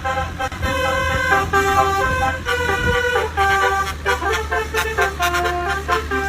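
Indonesian bus 'telolet' multi-tone horn playing a quick melody of short stepped notes over a steady low hum.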